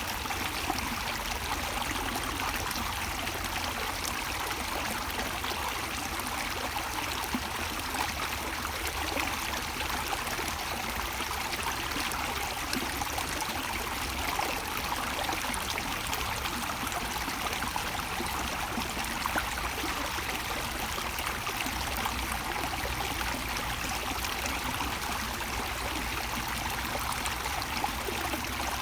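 Running water: a steady, even rush with a low rumble underneath.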